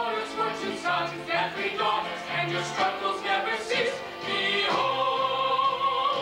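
Stage singers performing a musical-theatre song over instrumental accompaniment. A long held note begins about two thirds of the way in.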